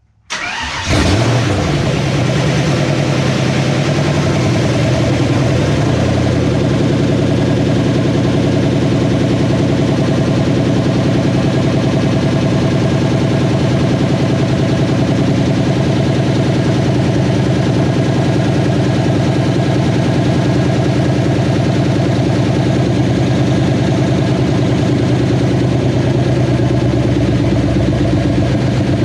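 Freshly rebuilt 302 V8 of a 1989 Mustang GT starting: it cranks briefly and catches about a second in. It then runs at a loud, steady idle.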